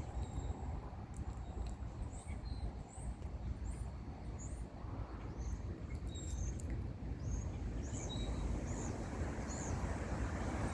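A bird chirping over and over, short high notes about two a second, over a steady low outdoor rumble.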